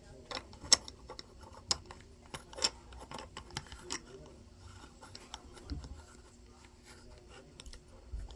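LEGO plastic pieces being handled and fitted together: scattered sharp clicks, roughly one a second, with faint rustling between them.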